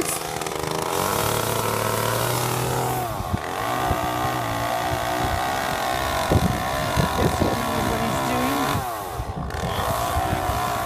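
Chainsaw running at high revs while cutting into a tree trunk. Its pitch dips and recovers twice, about three seconds in and again near the end.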